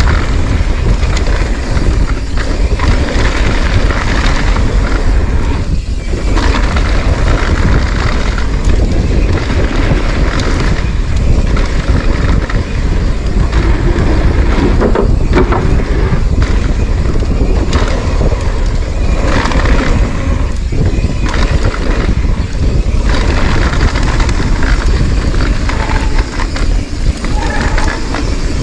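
Steady wind rush on the microphone of a camera riding a mountain bike fast down a dirt trail, mixed with tyre and trail noise from the bike.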